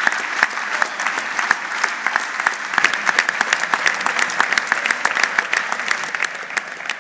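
A large hall audience applauding, many hands clapping at once in a dense, continuous patter that eases slightly near the end.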